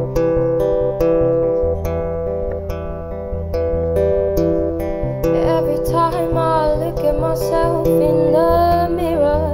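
Acoustic guitar playing a song intro in a steady picked rhythm of about three notes a second. About halfway through, a voice comes in singing a wavering melody over the guitar.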